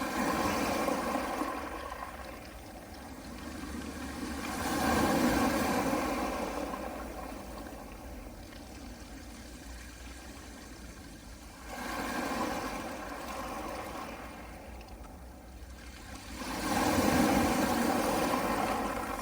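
Small sea waves washing onto a pebble beach: about four slow swells of rushing surf, each rising and fading over a couple of seconds.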